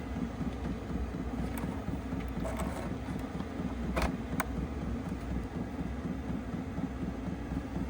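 Diesel air heater running during start-up, a steady low rumble with a fast, even flutter, drawing over 200 watts from the power station. Two short sharp clicks come close together about halfway through.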